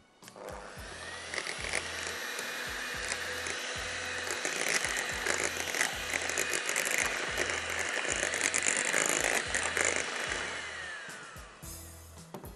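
Anex electric hand mixer running, its beaters whipping cream in a glass bowl. The motor whine rises as it starts just after the beginning, runs steadily, then falls away and stops about two seconds before the end.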